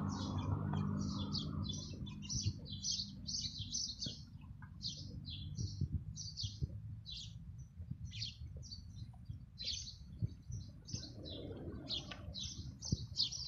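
Many small birds chirping in quick, busy short notes, with low handling rumble and soft knocks underneath.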